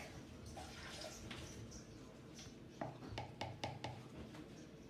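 Milk being poured into the cake mixture: a faint liquid trickle, with a few soft clicks about three seconds in.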